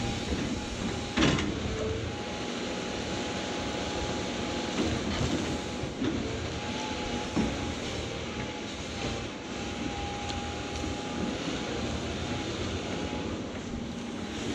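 Caterpillar 349F excavator running and working: a steady diesel engine with a steady whine, with a sharp clank about a second in and a few lighter knocks later as the bucket digs and swings.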